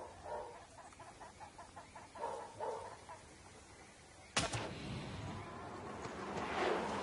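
Faint animal calls, then about four seconds in a sharp puff as a blowpipe fires a tranquilliser dart at the goat, followed by a swelling rush of noise.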